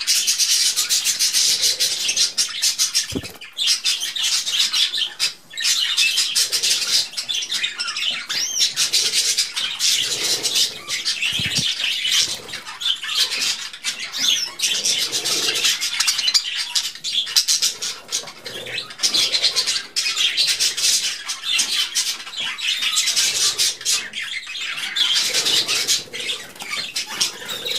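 A flock of budgerigars chattering and warbling without pause, a dense mix of fast chirps and squawks.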